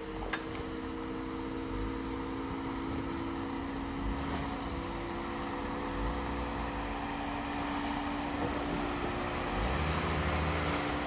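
A vehicle engine running steadily at a low level, with a single click about a second in.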